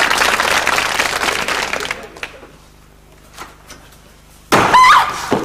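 Studio audience applause and laughter dying away about two seconds in. Near the end comes a brief, loud vocal sound with a sliding pitch.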